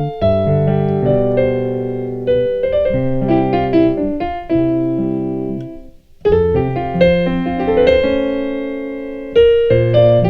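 Piano playing a gospel chord movement in the key of F: sustained chords over low bass notes. About six seconds in there is a brief break, then the chords resume.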